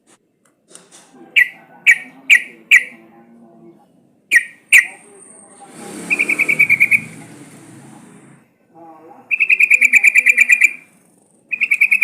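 Yellow-vented bulbul calling. First come six sharp, short notes in two groups, then three fast rattling trills of about a second each in the second half. A rushing noise sits under the first trill.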